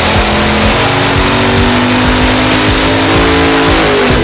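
Chevrolet Performance LSX 376-B15 twin-turbo V8 at full throttle under load on a chassis dyno. It runs loud, its pitch climbing slowly through the pull.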